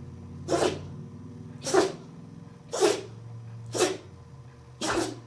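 Dog sneezing over and over, five short, sharp sneezes about a second apart.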